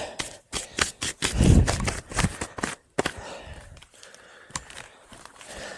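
Close handling noise: rustling with a quick run of clicks and knocks as clothing and gear are adjusted, and a heavy breath on the microphone about a second and a half in. Fainter scattered ticks follow.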